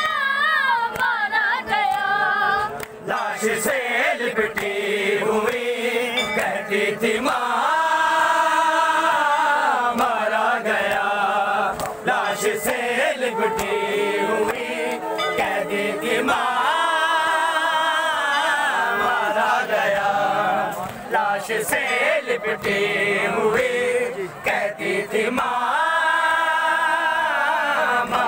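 Group of men chanting an Urdu noha, a Shia mourning lament for the slain young Ali Akbar, in sung phrases that repeat, with sharp slaps of hands striking chests (matam).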